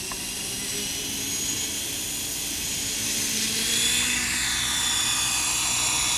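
Align T-Rex 550E electric RC helicopter's motor and main rotor giving a high-pitched whine that grows steadily louder as it lifts off the grass and climbs, its pitch shifting in the middle as the rotor speed changes.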